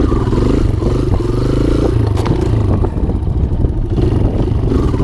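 Kawasaki KLX140's single-cylinder four-stroke dirt-bike engine revving up as the throttle is opened to lift the front wheel into a wheelie, then dropping back, with the revs climbing again near the end.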